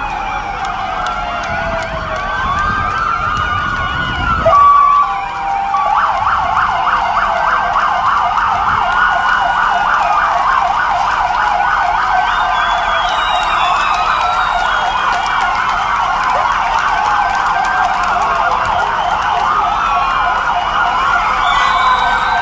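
Several emergency-vehicle sirens sounding together, their wails rising and falling across one another; from about six seconds in, one switches to a rapid yelp. A short steady tone and a brief low rumble, the loudest moment, come a little after four seconds in.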